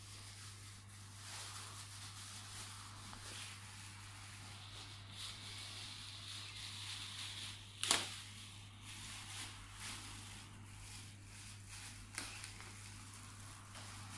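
Clear plastic bags crinkling and rustling as they are handled and pulled open, with scattered small crackles and one sharp, loud crackle a little past halfway.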